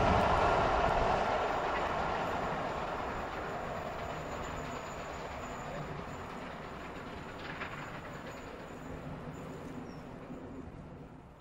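Passenger train of maroon coaches running away down the line, its wheel and rail rumble fading steadily as it goes into the distance.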